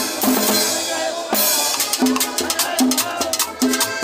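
Live cumbia band playing, with drums, bass and guitar. For about the first second a cymbal-heavy drum break sounds, then the steady cumbia beat comes back in.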